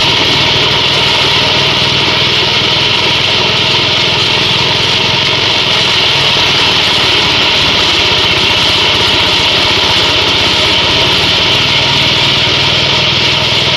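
Multifunction forage chopper machine running steadily, with an even mechanical drone and a strong high whirring.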